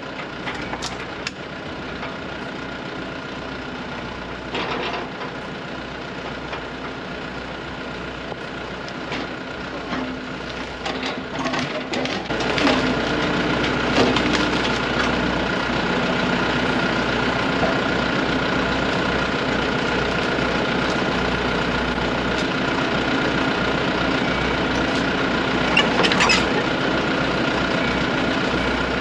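Excavator's diesel engine running steadily, with a steady whine, growing louder about twelve seconds in as it works harder. A few sharp knocks sound over it, one near the start, one in the middle and one near the end.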